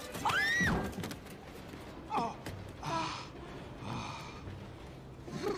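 Brief non-word vocal sounds: one exclamation that rises and falls in pitch about half a second in, then a short falling sound and soft gasps and breaths.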